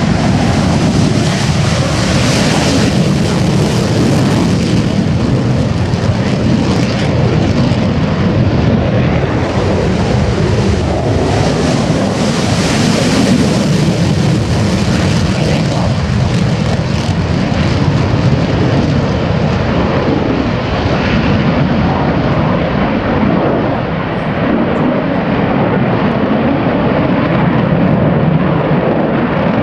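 USAF Thunderbirds F-16 fighter jets taking off in turn and climbing away, their jet engines loud and steady throughout, swelling harsher twice as the jets pass.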